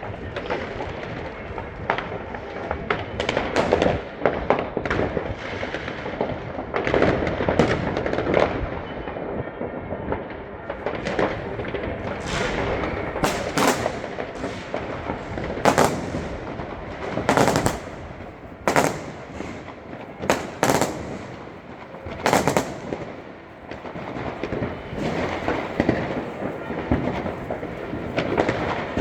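New Year's Eve fireworks going off all around: a continuous crackle of firecrackers and rockets with many sharp bangs, some of them loud single reports standing out above the rest.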